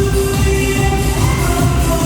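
Loud pop dance music with a steady beat.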